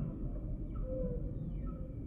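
Humpback whale song in a lull between louder calls: a short steady tone about halfway through and a few faint high glides over a low steady rumble.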